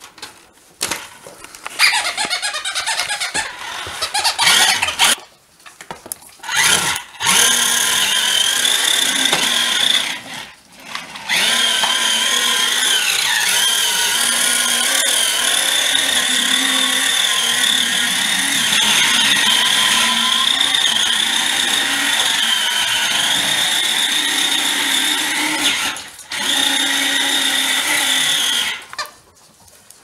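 Electric motor of a toy radio-controlled car whining as it runs, in several stretches with short stops and one long run, its pitch dipping and rising with the throttle.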